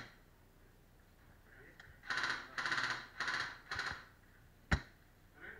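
Four short rasping, crackling bursts about half a second apart, then a single sharp crack from an airsoft rifle firing near the end.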